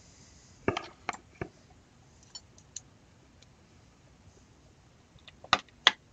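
Light clicks and taps of small metal and plastic parts being handled, then two sharp clicks close together near the end as the metal hammer with its rod is set into the plastic receiver half of a Tippmann Cronus paintball marker.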